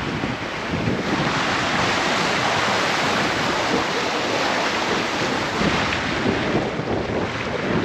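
Steady rushing noise of wind buffeting the microphone over the sound of the sea's waves, even throughout with no distinct knocks or tones.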